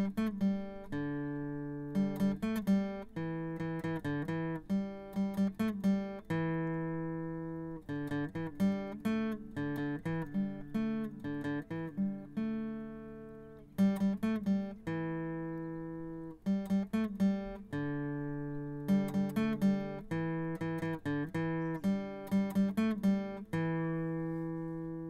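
Acoustic guitar music: runs of quickly plucked notes alternating with chords left to ring and fade.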